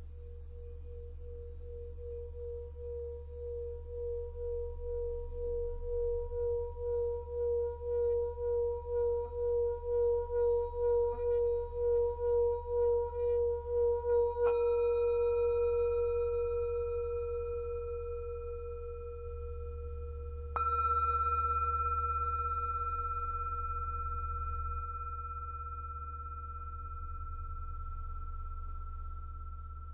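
Tibetan singing bowl: a pulsing, wavering tone swells steadily louder for about fifteen seconds. Then the bowl is struck twice, about six seconds apart, the second strike bringing out a higher ringing tone, and both strikes ring down slowly.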